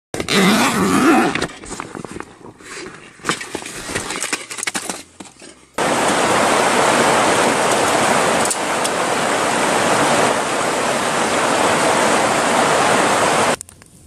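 A shallow creek rushing over rocks: a steady, even rush of water that starts abruptly about six seconds in and cuts off just before the end. Before it, a loud sound with wavering pitch lasts about a second and a half, followed by scattered clicks and knocks.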